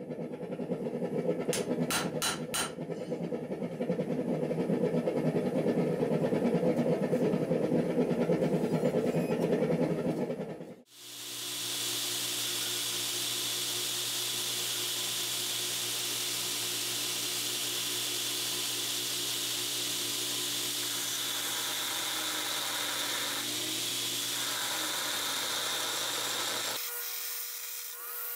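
A few hammer blows ring on the anvil on hot 5160 steel, followed by a loud, rough rushing noise for several seconds. After a cut, a belt grinder runs with a steady hiss as the forged blade is ground against its belt, and the sound stops abruptly near the end.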